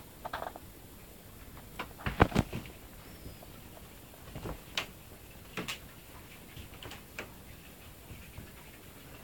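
Irregular knocks and thumps from a person walking with a handheld camera: footsteps and handling of the camera, the loudest cluster about two seconds in.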